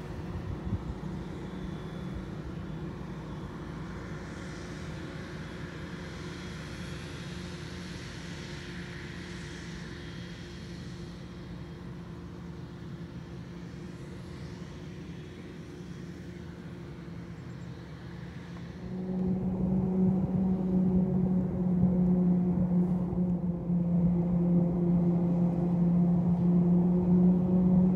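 A self-propelled forage harvester's engine runs steadily while it chops maize some way off. About two-thirds of the way through, a louder, nearer engine drone comes in and holds steady, rising slightly in pitch near the end.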